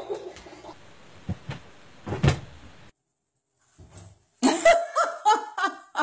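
A few dull knocks, then after a short gap two cats calling out loudly in short, wavering cries as they wrestle.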